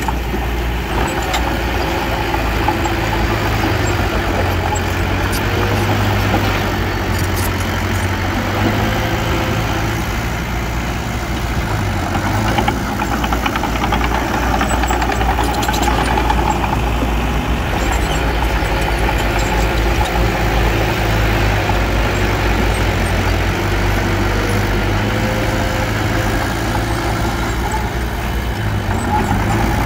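Diesel engine of a small bulldozer running steadily at work, its pitch shifting slightly a couple of times, with a few light knocks.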